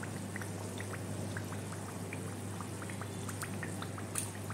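Khajur dough sweets deep-frying in oil on a low flame: a gentle bubbling with many small, scattered pops and crackles.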